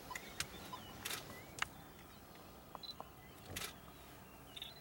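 A few sharp clicks and short rustling bursts, a couple of them a little longer than the rest, over faint chirping bird calls in a quiet outdoor background.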